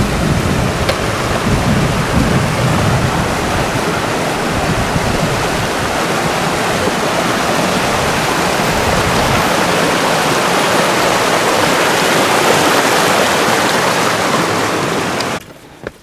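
A big taiga stream running loudly, sounding like a mountain river: a steady wash of water noise that cuts off suddenly near the end.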